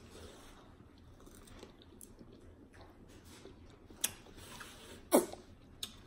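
Close-miked chewing of a fresh strawberry with whipped cream: soft, wet mouth sounds. There are a couple of sharp clicks, and about five seconds in comes one brief, loud sound that slides down in pitch.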